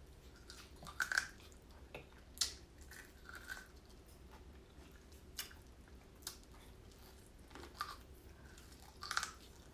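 A person chewing food close to the microphone: soft, wet mouth clicks and lip smacks, scattered irregularly about a second apart.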